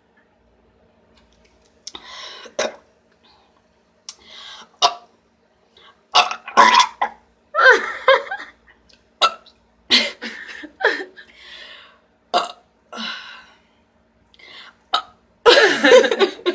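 A woman belching over and over, bringing up gas from the carbonated diet cola she has drunk: about a dozen burps, some short and some drawn out, starting about two seconds in, the longest and loudest near the end.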